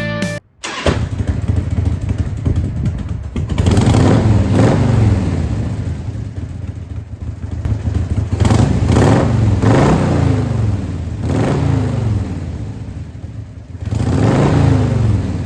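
Harley-Davidson Evolution 1340 V-twin of a 1997 Heritage Softail Classic, idling and blipped several times through its exhaust, the revs falling back to idle after each blip.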